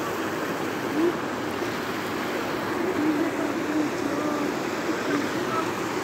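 River water running over rocks and stones in a steady rush, with faint voices in the background.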